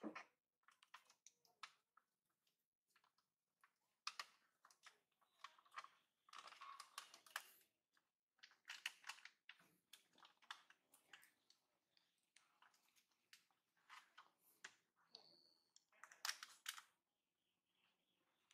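Faint, irregular clicking and rustling, with one brief high squeak about fifteen seconds in.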